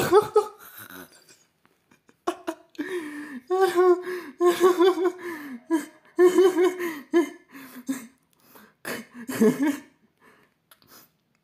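A man laughing in a string of high-pitched, pulsing bursts with short breaks between them.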